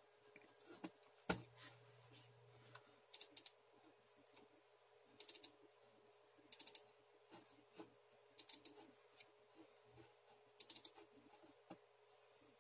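Quiet room with sparse clicking from operating a computer, mostly in short runs of two to four quick clicks every second or two, and one low knock about a second in.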